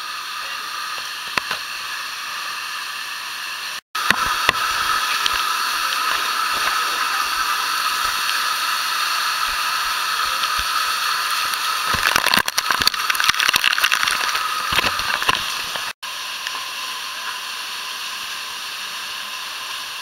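Steady rush of falling water from a waterfall, a constant hiss-like roar, louder through the middle stretch. Short crackles and clicks come about twelve to fifteen seconds in, and the sound cuts out for an instant twice, about four and sixteen seconds in.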